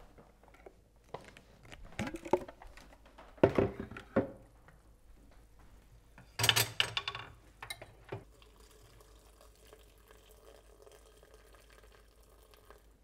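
A few knocks and clatters of a plastic blender container and a stainless steel skillet being handled at the stove. Then cooked potatoes, corn and stock pour and slide from the skillet into the blender container, a faint steady sound.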